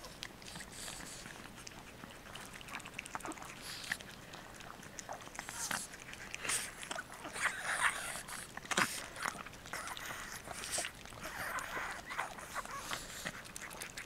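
Two Chihuahuas licking and lapping at a soft-serve ice cream cone, a dense run of quick wet smacks and clicks, louder around the middle and again near twelve seconds in.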